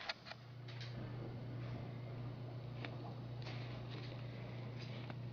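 A steady low hum that sets in just after the start, with a few faint scattered ticks.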